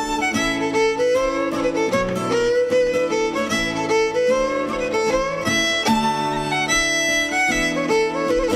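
Irish traditional fiddle music: a fiddle playing a lilting dance tune, a schottische, with the melody gliding between notes over a steady plucked accompaniment.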